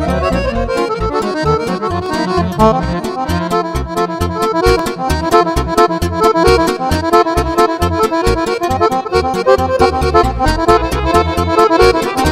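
Two accordions playing fast Romanian lăutărească music together in quick running passages over a steady, pulsing bass beat.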